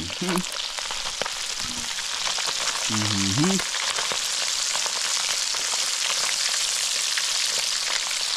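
Fish frying in a pan of hot oil and lard: a steady, dense sizzle dotted with small crackling pops.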